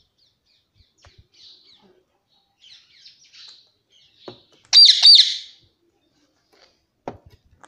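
Indian ringneck parakeet giving faint high chirps, then two loud shrill calls in quick succession about five seconds in.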